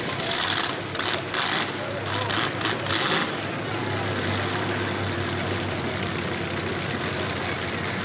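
Demolition derby cars idling while stopped under a red flag, with several short, loud bursts of hissing in the first three seconds.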